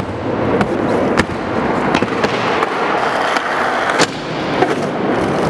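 Skateboard rolling over concrete and plywood, with several sharp clacks of the board striking the ledge and ground, the loudest right at the start.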